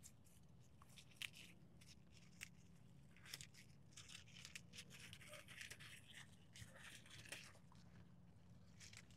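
Faint rustling of Malabar spinach leaves and stems as they are picked by hand, with a few short clicks and the softest handling noise in the middle of the stretch.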